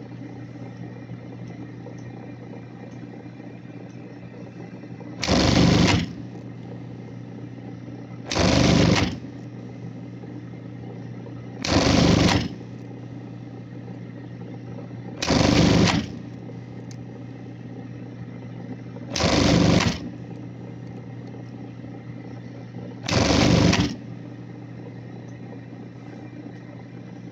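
Industrial sewing machine sewing on buttons: six short bursts of rapid stitching, each under a second, come every three to four seconds, one per button. Between bursts the machine's motor hums steadily.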